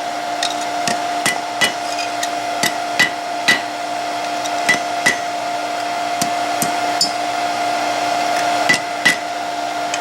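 Hammer blows on hot steel against an anvil: light, irregular strikes, often in quick pairs, touching up the scrolled tip of a rat-tail flint striker forged from an old high-carbon file. A steady hum runs underneath.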